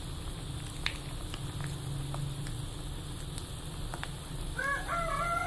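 Spiced krengsengan sauce simmering in a pan, bubbling and popping softly. Near the end a siren starts up.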